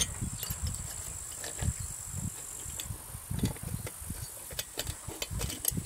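Hands working a long hex key on a chainsaw's screw: soft knocks and handling noise, with a few sharp metal clicks near the end. A steady high insect buzz runs behind it and cuts off about halfway through.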